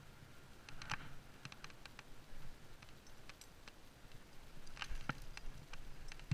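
Scattered light clicks and scrapes of a climber moving on a rock slab: hands and gear knocking and scuffing against the rock, with a bunch of clicks about a second in and the loudest ones near the end.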